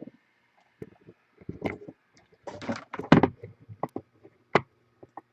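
Handling noise: a string of irregular knocks, taps and brief rustles, busiest and loudest about three seconds in.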